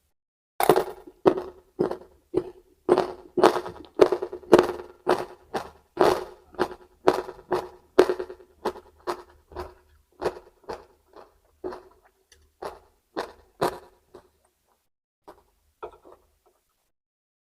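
Close-up crunching of raw vegetables being chewed, about two crunches a second, fading and slowing in the last few seconds until only a few faint ones remain.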